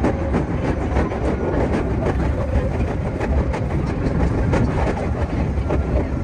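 Meitetsu 2200 series electric train running, heard from inside the driver's cab: a steady rumble with many quick clicks of the wheels over the rails.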